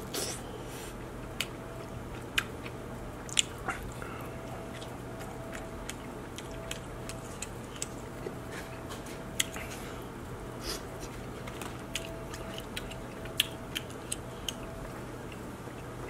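Eating king crab: chewing and mouth smacks, with scattered sharp clicks and cracks as the meat is bitten and pulled from the shell.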